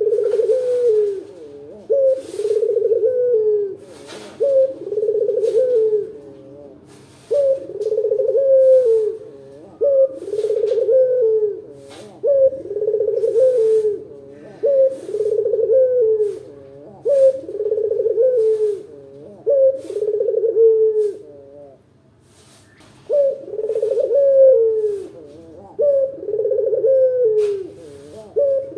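Barbary dove (Indonesian 'puter lokal') giving its full, deep rolling coo over and over, one coo every one to two seconds, with a short break about three quarters of the way through.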